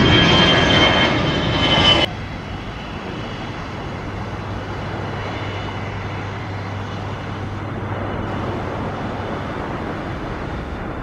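Jet airliner engines loud overhead as it climbs out, with a high whine, cut off suddenly about two seconds in. Then the steadier, more distant engine noise of a Malindo Air Boeing 737 on its takeoff roll, with a low steady hum.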